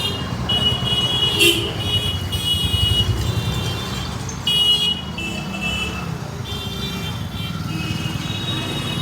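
Vehicle horns honking, high-pitched and one after another in short blasts at several slightly different pitches, over a steady low engine and traffic rumble.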